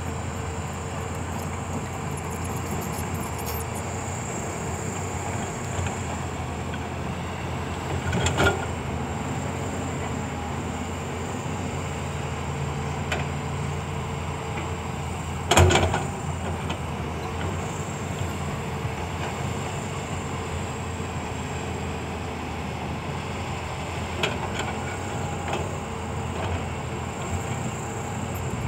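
Caterpillar 320D excavator's six-cylinder diesel engine running steadily under digging load, with two loud knocks about 8 and 16 seconds in and a few lighter ones near the end.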